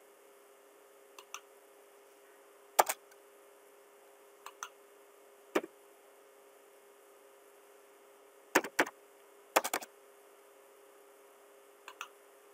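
Computer mouse button clicking, seven short groups of sharp clicks, mostly pairs, over a faint steady hum; the loudest fall about three seconds in and between eight and ten seconds in.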